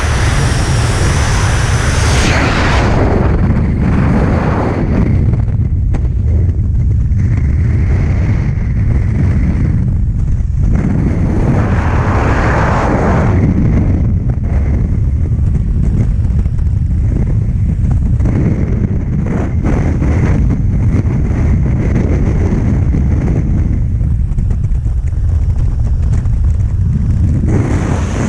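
Freefall wind buffeting the skydiving camera's microphone: a loud, steady rush, deep and rumbling, swelling and easing every few seconds as the camera moves in the airflow.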